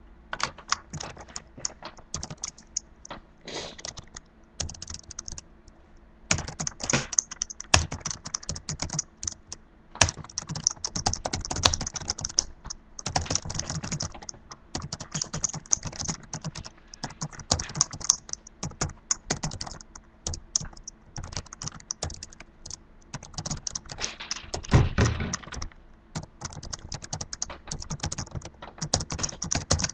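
Typing on a computer keyboard: rapid, irregular key clicks in bursts with short pauses between them.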